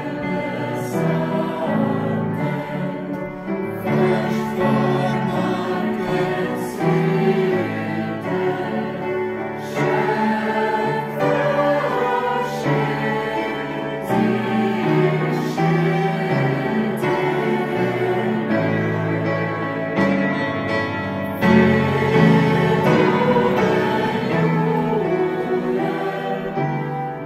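Choral music: a choir singing slow, held chords over an accompaniment, with the chords changing every second or so.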